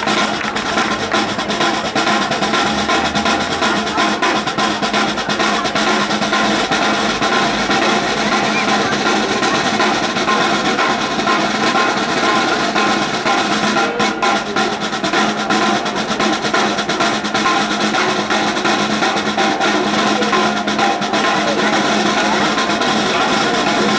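Drumline snare drums playing fast, continuous rolls and rhythms, with some bass drum underneath.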